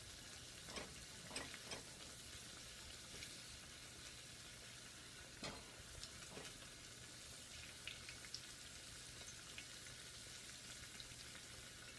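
Eggplant cubes frying in shallow oil in a small cast-iron skillet: a faint, steady sizzle, with a few soft taps as wooden chopsticks turn the pieces.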